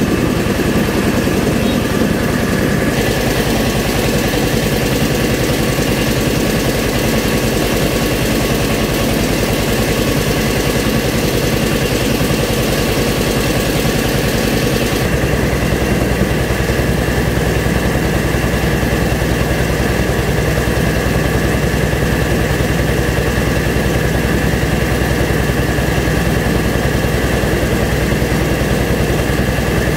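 Engine-driven rice milling machine running steadily at a loud, even level. Its sound shifts abruptly about three seconds in and again about halfway through.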